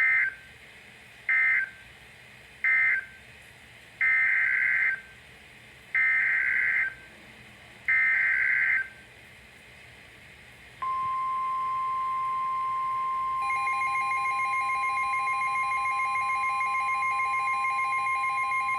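NOAA Weather Radio Emergency Alert System signalling. First come three short end-of-message SAME data bursts, which close the first warning. Then three longer SAME header bursts open the next severe thunderstorm warning, and about eleven seconds in the steady 1050 Hz weather alert tone starts, joined a few seconds later by a second, pulsing alarm tone.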